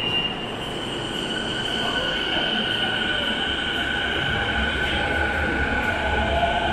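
Toei Shinjuku Line subway train pulling out of an underground platform: two steady high squealing tones over a running rumble, then a rising motor tone and a heavier rumble from about four seconds in as the train gathers speed.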